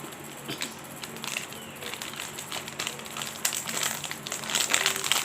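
Plastic packaging crinkling and crackling as it is handled and pulled at to open it, with scattered crackles at first and a busier run of crinkling over the last two seconds.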